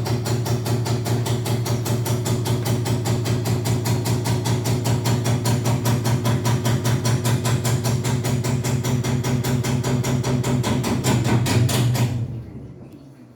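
Panasonic NA-V170MDH drum washing machine running with a rapid, even knocking, about five knocks a second, over a steady low hum; it winds down and stops about twelve seconds in. This is the abnormal noise the owner hears, though a technician who opened the machine said nothing was wrong.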